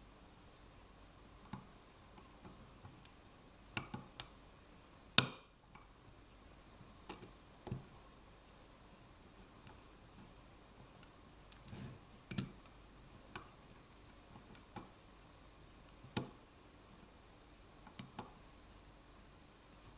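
Hook pick and tension wrench working in a five-pin ASEC lock cylinder with serrated and spool pins: scattered small clicks and taps as the pins are lifted and set, with one sharp, louder click about five seconds in.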